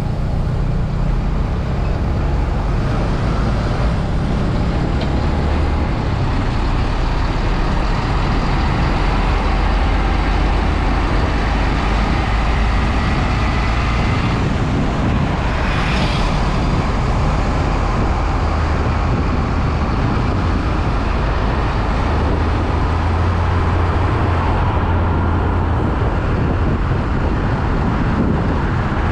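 Heavy container trucks' diesel engines running in passing road traffic, a steady low rumble with tyre and road noise, and a short hiss about halfway through.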